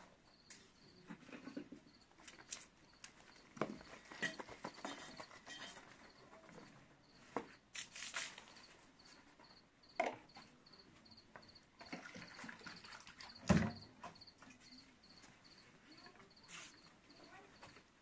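A cricket chirping steadily, about two high chirps a second, under scattered knocks and clatter of things being handled; the loudest is a thump about thirteen seconds in.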